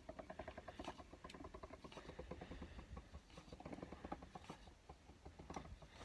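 Manual die-cutting machine being hand-cranked, its rollers pulling the acrylic cutting plates with a metal die through the machine. It makes a fast, faint, even run of clicks, about ten a second.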